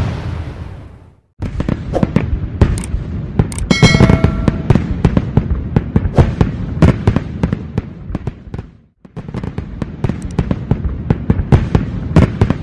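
Fireworks popping and crackling in dense rapid bursts. The bursts start after a fading sound in the first second and break off briefly about nine seconds in before starting again.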